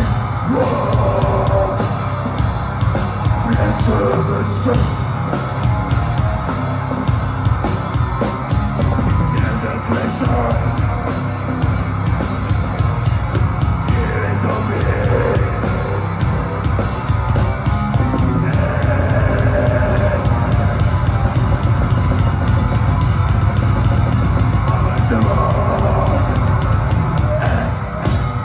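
Live extreme metal band playing at full volume: heavily distorted guitars and bass over fast, pounding drums, heard from the crowd.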